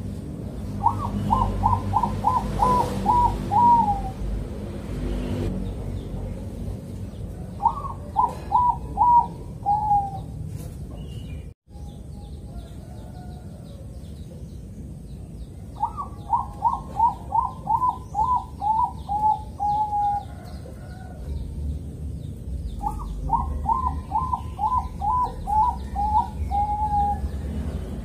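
Bangkok-bred zebra dove (perkutut) singing its staccato cooing song in four bouts of quick, evenly spaced notes. Each bout opens on a higher note and steps slightly down in pitch. The second bout is short, the last two longer.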